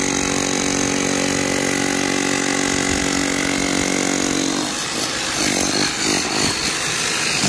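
An electric machine motor running steadily at a constant pitch; after about four and a half seconds the sound turns rougher and uneven.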